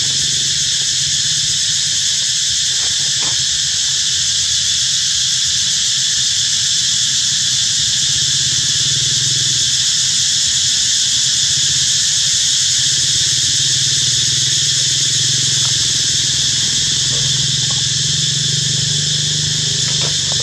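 Insect chorus droning steadily at a high pitch, loud and unbroken, over a low steady hum.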